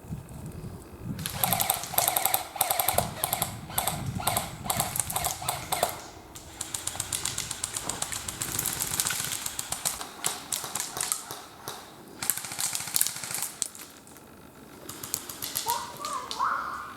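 Airsoft guns firing on full auto: several bursts of rapid clicking shots, each lasting a few seconds, with short gaps between. A short rising call near the end.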